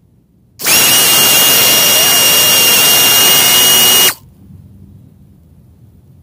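A small motor running with a steady high whine for about three and a half seconds, starting and cutting off abruptly.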